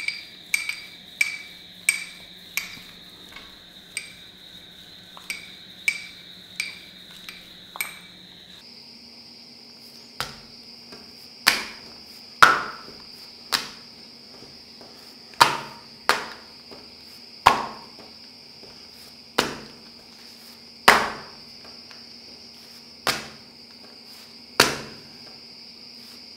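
Sharp knocks on a granite counter as parotta dough is rolled out and stretched: quick, lighter knocks about one and a half a second at first, then louder, more widely spaced knocks. A faint steady high whine sits underneath.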